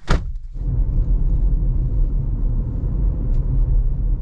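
Steady low road rumble of a car driving, heard from inside the car, after a short sharp click at the very start.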